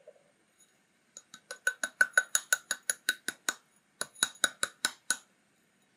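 Quick, sharp taps on a clear measuring cup held over a stainless saucepan, knocking the last of the beet sugar out of it. The taps come about four a second, with a short break midway.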